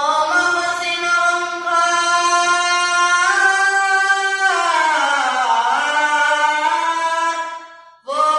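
A boy singing a naat unaccompanied into a microphone, holding long notes with a melodic run that dips in pitch midway, then a short break for breath near the end before the next phrase begins.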